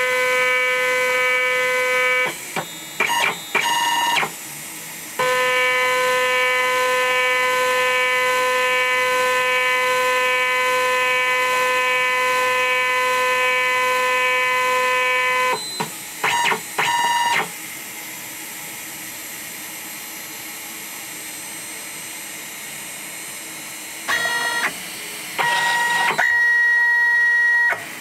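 Continuity buzzer of a homemade center finder, wired through a clip on the end mill and the aluminium cup, giving a steady buzzing tone while the bit touches the cup. The tone stutters into short broken beeps as the contact makes and breaks, with quiet gaps between. Near the end it shifts to a higher tone.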